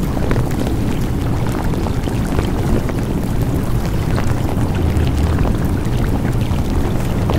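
Steady rushing noise, like running water or surf, with small crackles throughout: the masking sound of a layered, sped-up subliminal audio track.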